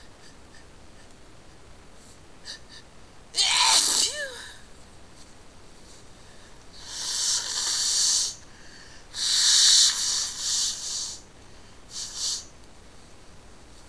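A person sneezes once with a short voiced burst, then blows their nose in two long, hissing blows, followed by a couple of short sniffs.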